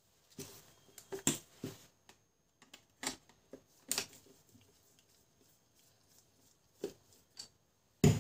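Irregular light clicks and taps of plastic parts being handled, about a dozen in all, the loudest cluster a little over a second in.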